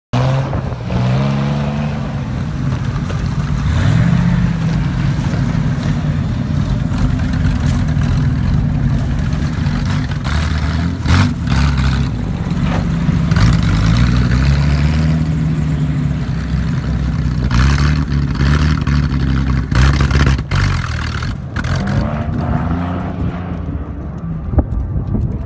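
Chevrolet V6 engine in a Ford Dexta tractor, revved up and down over and over, its pitch climbing and dropping again about every four to five seconds.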